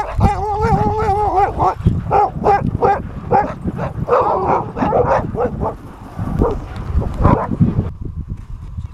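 Team of sled dogs in harness barking and yipping excitedly. A wavering howl in the first second and a half gives way to a rapid string of barks and yips that dies down about eight seconds in. Wind rumbles low on the microphone underneath.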